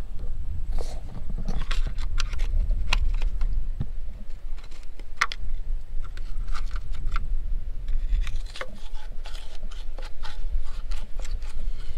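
Scattered scrapes and light taps of a wire being worked into the rust-clogged coolant drain of a Farmall H engine block, over a steady low rumble.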